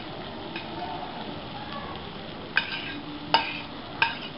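Steady sizzling of food on a hot buttered sizzler plate, with a spoon clinking three times against a ceramic serving plate in the second half as rice is pushed onto the sizzler.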